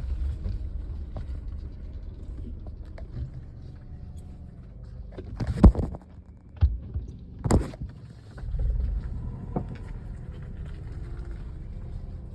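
Dull knocks from the front end of a 2011 Chevrolet Lacetti, the kind it makes when the steering wheel is turned or the car starts off uphill; the cause is unknown to the owner. Three knocks about a second apart come a little past halfway, the first the loudest, then a fainter one, over the low steady running of the car.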